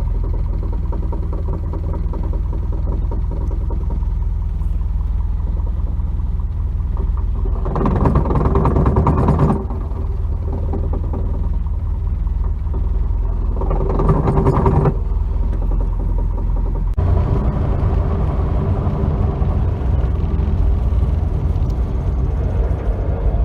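1992 Nissan 240SX's four-cylinder engine running steadily, in a video about the rattling and scraping noise the owner puts down to a bad clutch. It gets louder and harsher twice for a second or two, about 8 and 14 seconds in, and its sound changes again at about 17 seconds.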